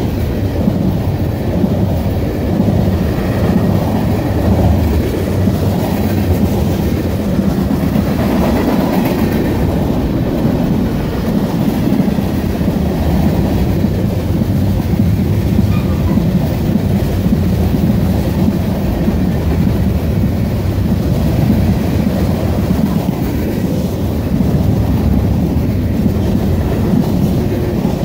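Fully loaded freight cars, tank cars and covered hoppers, rolling past on steel rails: a steady heavy rumble of wheels on track with a continuous clicking over the rail joints.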